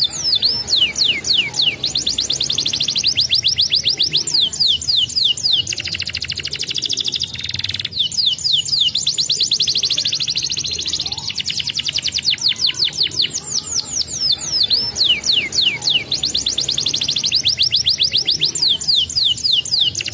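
Domestic canary singing a continuous rolling song: long runs of quick, high, down-slurred notes, broken by faster buzzing trills.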